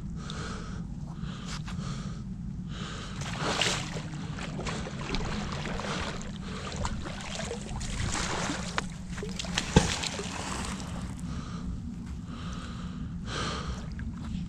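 Rustling of a magnet-fishing rope being coiled and cast into a river, over a steady low rumble, with one sharp knock about ten seconds in.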